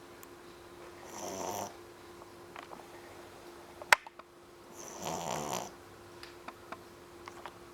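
Three-month-old puppy snoring while asleep: two snores about four seconds apart. A single sharp click between them is the loudest sound, and a faint steady hum runs underneath.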